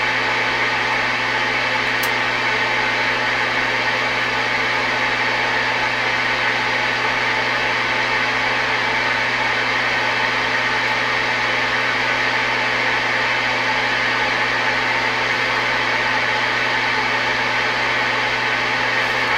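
Steady static hiss from a CB radio receiver's speaker on an open channel with nobody transmitting, a low steady hum under it and a faint click about two seconds in.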